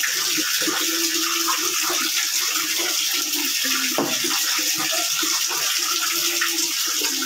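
Tap water running steadily into a plastic bucket.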